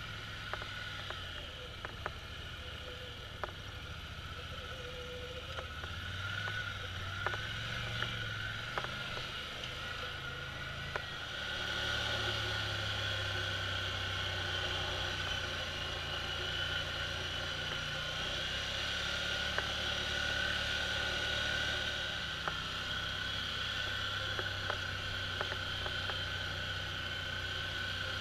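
Polaris Sportsman ATV engine running as the quad drives a rocky trail, with a steady high whine over the engine hum and scattered clicks and knocks from the ride over rock. It gets louder about twelve seconds in.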